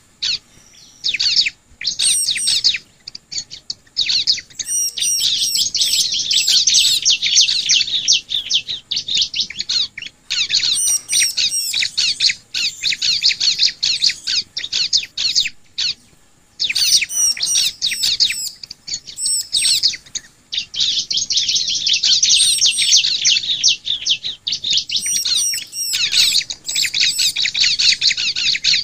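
Ciblek (bar-winged prinia) singing: a loud, rapid run of high-pitched chirps and trills in long phrases broken by brief pauses, the kind of song used as a lure to get other ciblek to sing.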